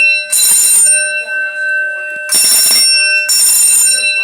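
Building fire alarm sounding loudly in bursts: one ringing blast, a pause of about a second and a half, then three half-second blasts about a second apart. This is the temporal-three evacuation pattern.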